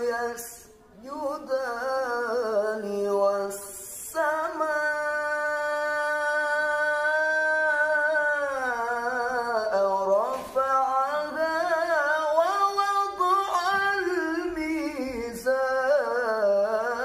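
A man reciting the Quran in the melodic tilawah style, unaccompanied. He holds one long note for about four seconds, then slides down and goes into quick ornamented runs.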